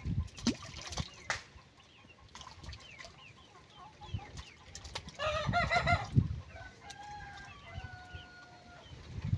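A chicken calling: a loud run of wavering notes about five seconds in, followed by a couple of longer, even notes. Small birds chirp throughout, and there are a few low knocks near the start.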